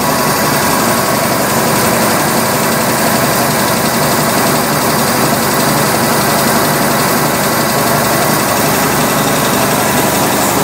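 Antique WWII high-pressure torpedo/dive air compressor and its V8 driving engine running steadily, pumping air.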